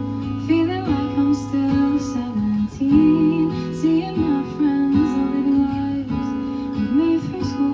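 Acoustic guitar strumming a song accompaniment.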